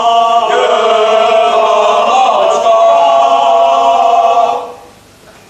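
Group of male voices singing together, holding one long chord that breaks off abruptly near the end.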